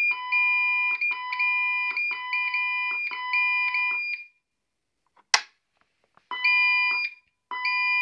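Intruder-alarm keypad sounding its steady entry-warning tone, the signal that the code must be entered before the alarm goes off, broken by short gaps as keys are pressed. The tone stops about four seconds in, a sharp click follows about a second later, and two more beeps sound near the end as the system unsets.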